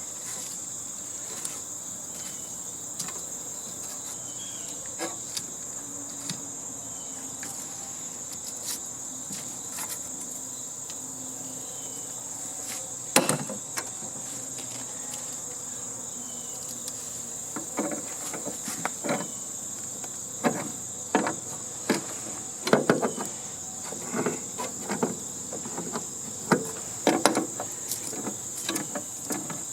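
A steady high-pitched insect chorus, with scattered knocks and clatter of hand tools prying plastic parts off the sheet-steel casing of a heating and air-conditioning unit: one sharp knock about halfway through, then frequent knocks in the second half.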